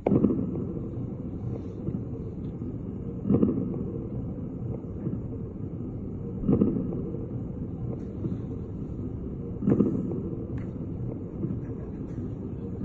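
Chest sounds heard through a stethoscope with coarse crackles (coarse moist rales): a surge of breath noise about every three seconds, with crackles that each pop once rather than in a rapid series.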